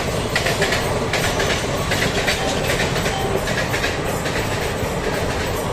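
Two express trains passing each other at speed: a steady rushing roar of wheels and air with rapid clattering of wheels over the rails as the other train's coaches go by on the next track, heard from the doorway of a moving coach.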